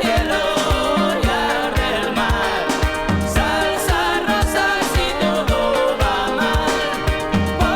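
Pop song playing: a steady drum beat under a wavering melodic lead line, with no words.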